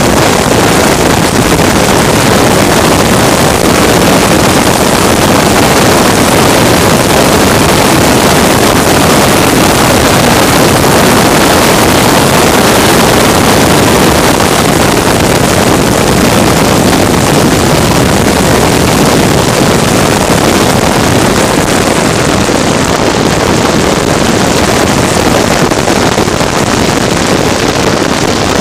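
Loud, steady rush of a vehicle running at speed, with wind on the microphone and no clear engine pitch standing out; it eases slightly near the end.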